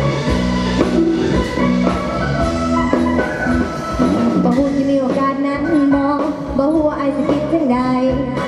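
Live Isan ponglang band music: a lively folk tune on wooden ponglang xylophone with drums and percussion. A woman starts singing over the band about halfway through.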